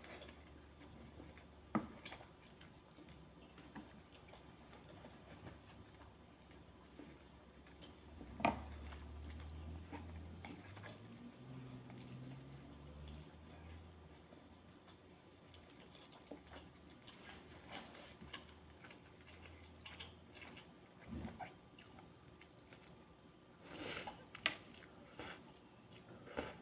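Quiet close-up eating of sukiyaki noodle soup: scattered clicks and taps of utensils and soft chewing. The sharpest clicks come about two seconds in and about a third of the way in, with a cluster near the end. A faint low hum runs underneath and rises in pitch for a few seconds around the middle.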